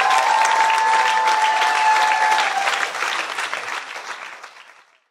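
Concert audience applauding, with one long held call from a voice over the clapping for the first couple of seconds. The applause fades out over the last two seconds.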